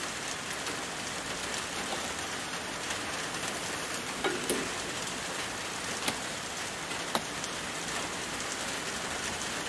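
A steady, even hiss with no engine or motor tone, broken by a few light clicks about four, six and seven seconds in.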